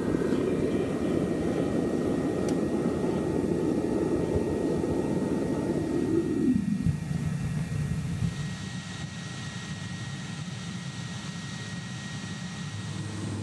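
Burner of a home-built keg foundry furnace running with a steady rushing roar, then dropping in pitch and dying away about seven seconds in as it is shut down, leaving a quieter low hum.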